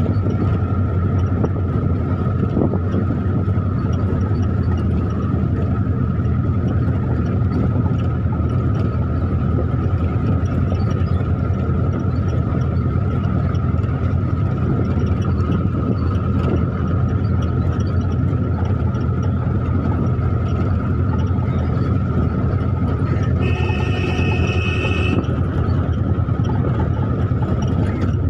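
Taxi engine and road noise heard from inside the moving cab: a steady low rumble with a constant whine over it. A horn sounds for about a second and a half near the end.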